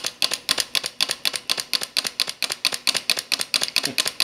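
Small flame eater (vacuum) engine with a precision-bore Pyrex glass cylinder running steadily, giving a rapid, even train of sharp mechanical clicks. It is running as a reliable runner with the burner flame adjusted right.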